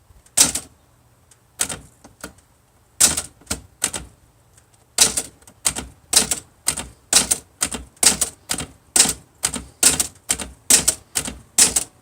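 Type bars of an early-1960s Olivetti-Underwood Studio 44 manual typewriter striking the platen: a few separate keystrokes at first, then a steady run of about three strokes a second from about five seconds in.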